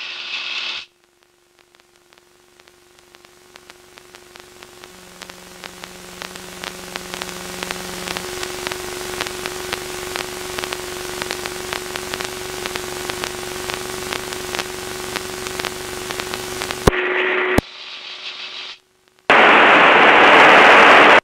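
Aircraft radio static: a hiss with a steady tone and rapid ticking, growing louder as the radio volume is turned up, which cuts off about 17 seconds in; a loud burst of static fills the last two seconds.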